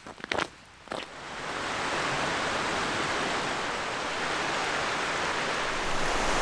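A few short crunches, then rushing water fades in about a second in: a stream or river running steadily and strongly.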